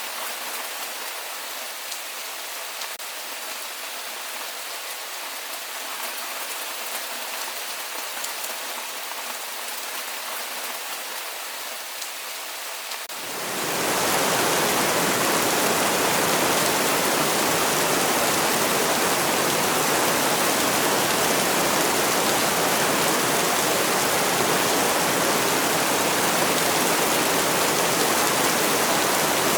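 Recorded rainfall: a fainter, higher hiss of rain with fine drop ticks, which about thirteen seconds in swells within a second into a louder, fuller and steady rush of heavy rain.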